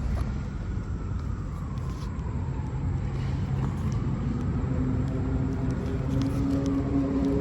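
Low rumble of a motor vehicle engine, with a steady engine hum coming in about halfway and growing louder.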